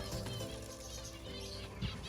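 Background music with a steady tune, and small aviary birds chirping over it in short, high calls.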